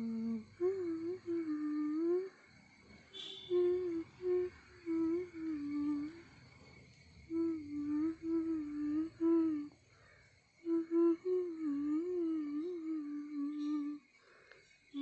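A person humming a tune in short melodic phrases, with brief pauses between them.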